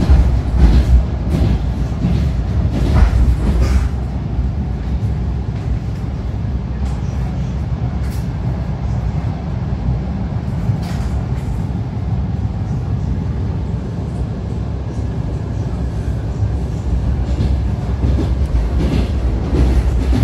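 A passenger train in motion, heard from inside the carriage: a steady low rumble from the running gear, with scattered short knocks from the wheels on the track.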